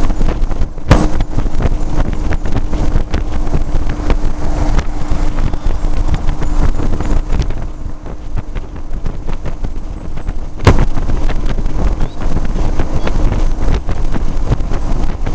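Wind buffeting the microphone on a moving motorcycle, over the low rumble of the engine and road. A steady hum runs through the first half and fades out, and there are two sharp knocks, about a second in and again near the end.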